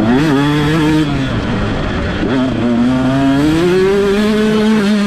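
125cc two-stroke motocross bike engine heard from on board under hard throttle: the revs jump up at once, drop away about a second in, then climb steadily over the next couple of seconds and hold high.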